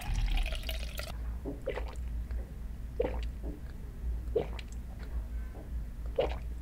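Soju pouring from a glass bottle into a shot glass, stopping about a second in, then three separate gulps as the shot is swallowed slowly.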